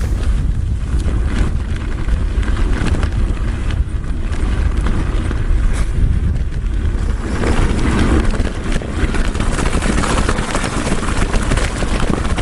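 Wind buffeting the microphone, with tyre rumble and small rattles, as a mountain bike is ridden along.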